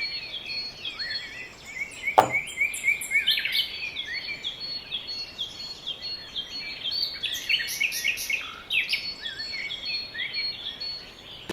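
Birds chirping steadily with many quick, short chirps, and a single sharp knock about two seconds in.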